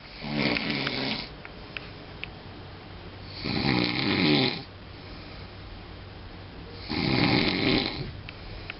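Snoring: three snores about three and a half seconds apart, each lasting about a second, with quieter breathing between them.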